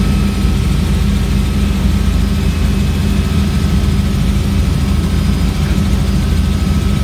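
Helicopter in flight heard from inside the cabin: loud, steady engine and rotor noise.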